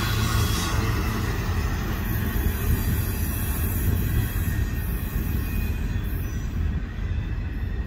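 Double-stack intermodal freight train's wheels rumbling and clattering on the rails as its well cars roll away. The higher-pitched rattle fades after the first couple of seconds, leaving a steady low rumble.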